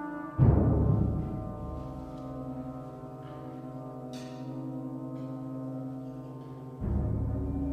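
Contemporary ensemble music for brass and percussion: a deep gong stroke about half a second in rings on and slowly fades under held tones, and a second stroke comes near the end.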